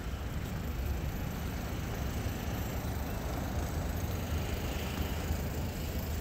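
Steady city-street noise: a continuous low rumble of avenue traffic with no distinct events.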